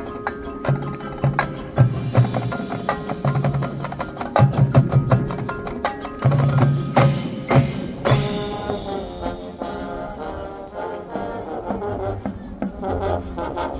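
A marching band playing: percussion taps rapidly over held wind and brass chords, with a loud crash about eight seconds in that rings away, after which the chords sustain.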